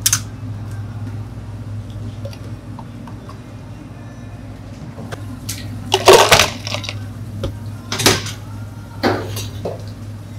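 Ice cubes scooped with a metal scoop and poured into a clear plastic cup, clattering in three loud bursts in the second half, over a steady low hum.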